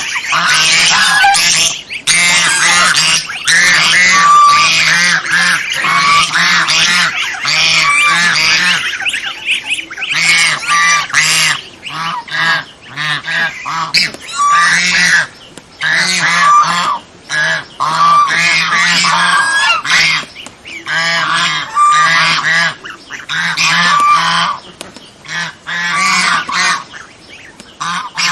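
Domestic swan goose honking over and over. For about the first ten seconds the calls come in a dense, nearly continuous run, then in shorter bursts with brief pauses between them.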